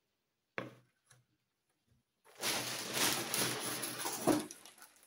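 A short knock, then a large plastic shopping bag crinkling and rustling for about two seconds as hands rummage inside it, with a sharper crackle near the end.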